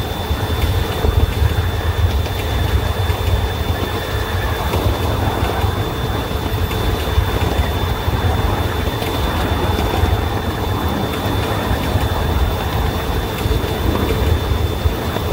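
Miniature ride-on locomotive running along its track: a steady low rumble of the running gear on the rails mixed with motor noise, with a thin steady high whine over it.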